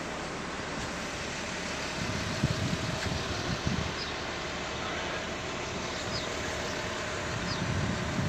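Steady road and engine noise from a vehicle driving through city streets, with low rumbling gusts on the microphone about two to four seconds in and again near the end.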